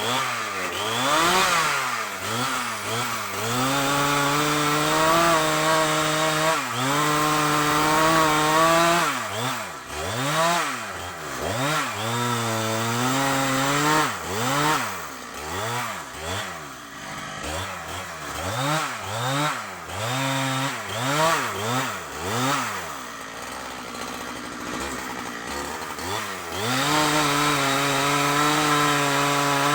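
Two-stroke chainsaw cutting a kapok tree, its engine revved up and down over and over in quick sweeps. Between the sweeps are stretches held at high speed, the longest about 4 seconds in and again near the end.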